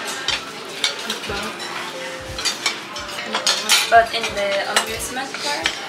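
Cutlery and dishes clinking and knocking during a meal: a run of short, scattered clicks, with voices in the background.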